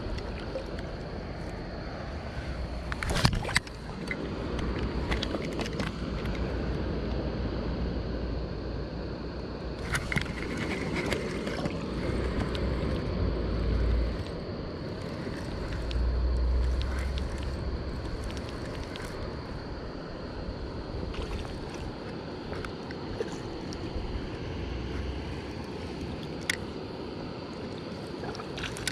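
Steady rush of a flowing stream, with wind buffeting the microphone in gusts. A few sharp clicks stand out, the loudest about three seconds in.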